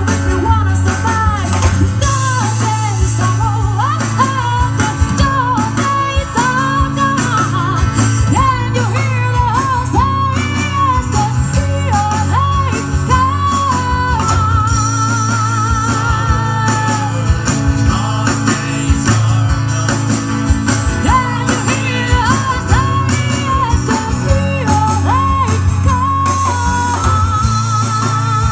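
Live band playing a song through a PA: a woman singing lead over strummed acoustic guitar, electric guitar and drums, steady and loud throughout.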